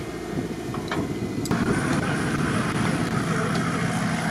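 Engines of off-road 4x4s running under load as they crawl over sand mounds. About a second and a half in, the sound changes abruptly to a different, slightly louder engine.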